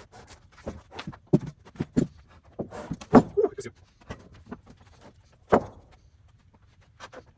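Irregular knocks and clunks, about a dozen spread unevenly over several seconds, the loudest about three seconds in and near the middle, over a faint low steady hum.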